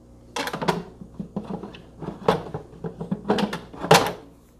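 Ninja Foodi pressure-cooker lid being fitted and turned to lock. A series of knocks and clicks in little clusters, the loudest about four seconds in.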